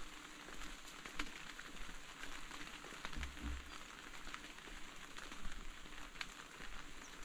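Steady rain falling, with separate drops ticking close by now and then.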